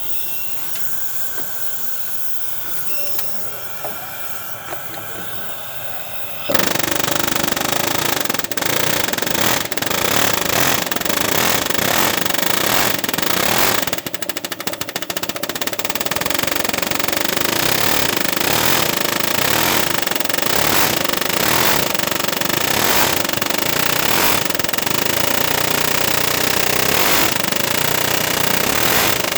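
Rapid, continuous power hammering on a corroded, seized EGR valve on a 6.4 Powerstroke diesel, trying to break it free. It starts loud about six seconds in, after a quieter steady noise, and keeps going with only a brief letup partway through.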